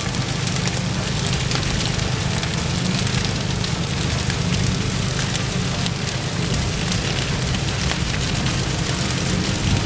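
Dry prairie grass burning along a flame front, with dense crackling and popping over a steady low rumble.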